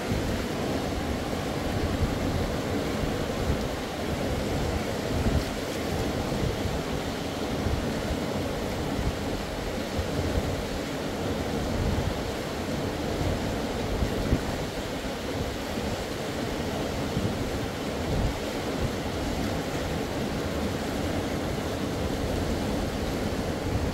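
Wind buffeting the microphone over a steady rushing noise.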